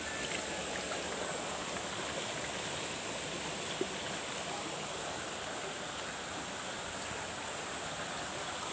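Steady rush of flowing water, an even hiss with no let-up, with a thin high steady whine above it and a single small click near the middle.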